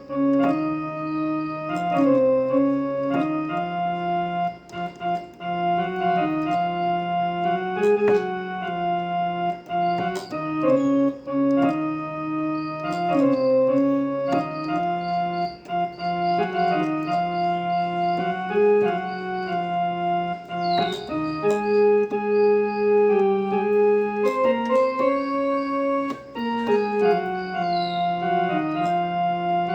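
Casio electronic keyboard on its harmonium voice playing a slow melody in held, reedy notes over sustained lower notes, the tune stepping to a new note every second or two.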